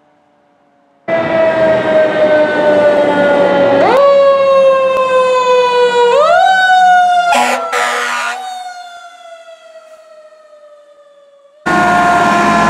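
Fire truck siren wailing loudly, its pitch slowly winding down and twice swept quickly back up, with two short horn blasts midway. The siren then fades as the truck moves off, and a loud siren starts abruptly again near the end.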